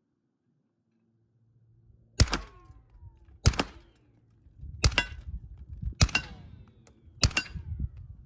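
Five single shots from a .300 Blackout Honey Badger AR pistol, fired at a steady pace of about one every second and a quarter, each followed by a short ringing tail.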